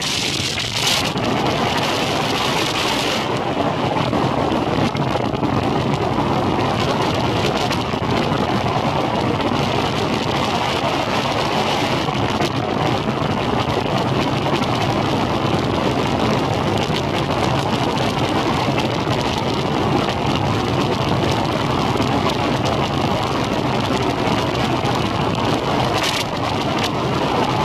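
Boat's outboard motor running steadily as the boat travels across the water, under a steady hiss of water and wind, stronger in the first few seconds.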